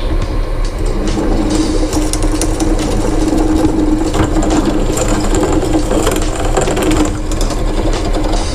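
Bench pillar drill running with a steady hum, its bit fed down into a flattened copper pipe to drill a bolt hole; the tone is strongest through the middle while the bit cuts.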